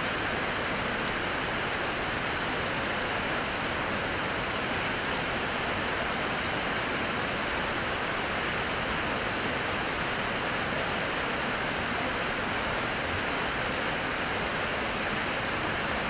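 Steady rush of flowing river water, an even hiss that does not change.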